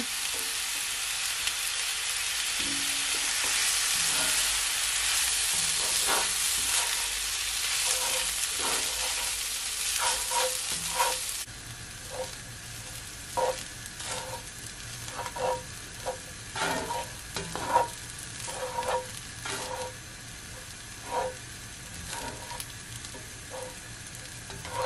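Rice and mixed vegetables, just dressed with dark soy sauce, sizzling in hot oil in a frying pan while being stirred with a black plastic spoon-spatula. The sizzle is loud for about the first half, then drops off suddenly, leaving the scrape and tap of the spoon against the pan about once a second over a quieter sizzle.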